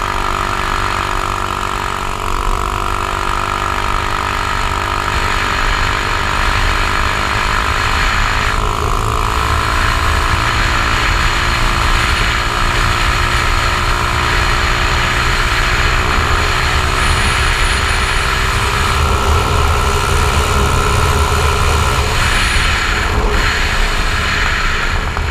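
A 150cc scooter engine running hard at sustained high speed, nearly buried under heavy wind rumble on the helmet-mounted camera. The sound is muffled by the closed GoPro housing and eases off near the end.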